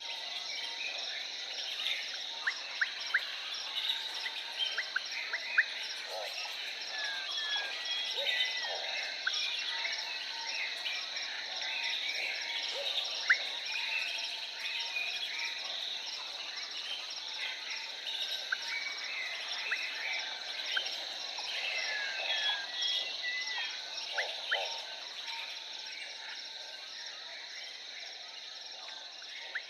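Jungle ambience: a steady high insect drone with a fast pulsing trill over it, and many short bird chirps and calls scattered through.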